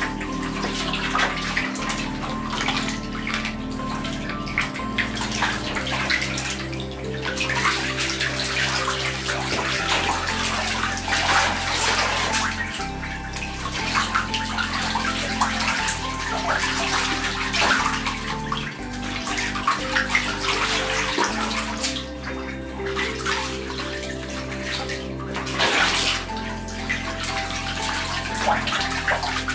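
Young ducks splashing, paddling and dabbling in a small tub of water, in irregular bursts with brief lulls. Soft background music with sustained low notes plays underneath.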